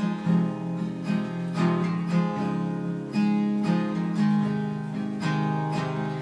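Acoustic guitar strummed and picked, a run of chords struck in a loose, even rhythm with no singing over it.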